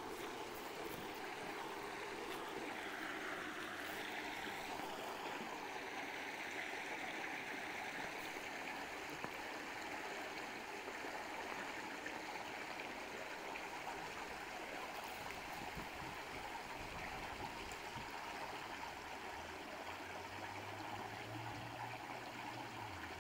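Water gushing steadily through a wooden canal lock gate and splashing into the lock chamber, a continuous rushing sound. A faint low hum joins near the end.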